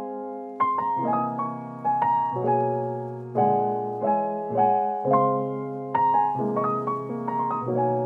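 Background music: a piano playing a gentle melody, its notes struck and dying away about once or twice a second.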